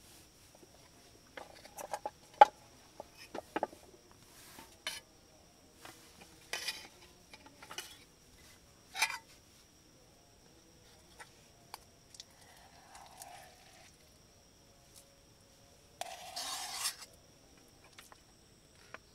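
Metal camp cookware, a plate and cutlery being handled as a meal is dished up: scattered sharp clinks and knocks, and a longer scrape about sixteen seconds in.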